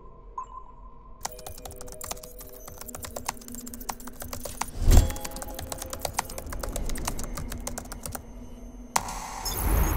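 Fast computer-keyboard typing, a dense run of key clicks that starts about a second in and stops after about eight seconds, over a low steady music drone. A heavy thump lands about five seconds in, and a rising whoosh swells near the end.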